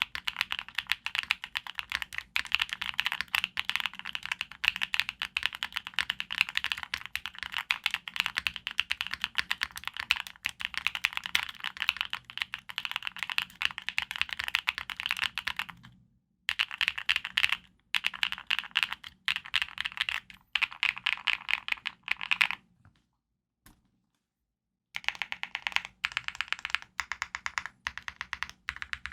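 Fast typing on the TKD Cycle8 aluminium TKL mechanical keyboard: a dense run of keystroke clacks, with a brief pause about two-thirds of the way through and a silent break of about two seconds before the typing resumes.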